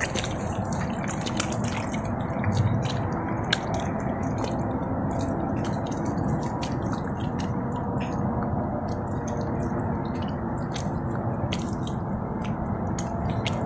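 Wet mangrove mud squelching and sucking as a bare arm gropes deep in a flooded mud crab burrow, with scattered sharp clicks and pops throughout.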